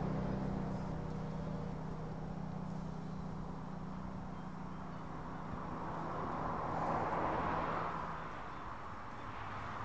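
A motor vehicle passing on a nearby road: a steady engine hum and tyre noise that swell to their loudest about seven seconds in, then fade as the hum stops.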